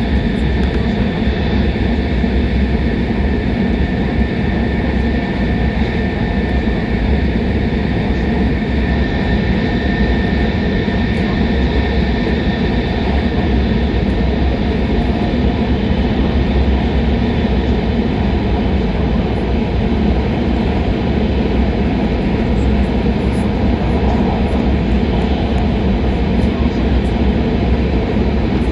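Shinkansen bullet train running at speed, heard from inside the passenger cabin: a steady rumble with a faint high whine over it.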